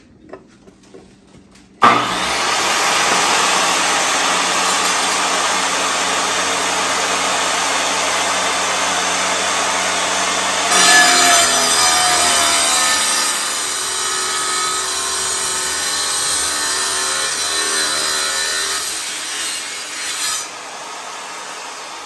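Power saw cutting through a geode: it starts suddenly about two seconds in and runs steadily, then takes on a wavering whine about halfway through. Near the end the cutting noise drops off sharply to a quieter steady sound.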